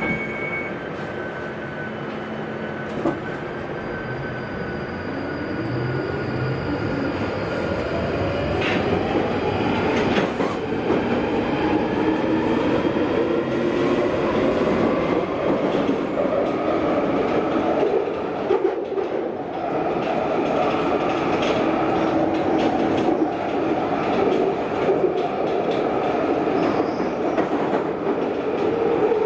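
London Underground 1995 Stock train running in tunnel: its traction motors whine, rising steadily in pitch as the train gathers speed, then settle into a steady rumble of wheels on rail with a few sharp clicks.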